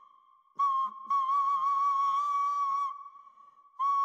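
Background music: a flute-like wind instrument holds one high note with a slight waver. It fades almost away at the start, then swells back in twice, briefly and then for about two seconds.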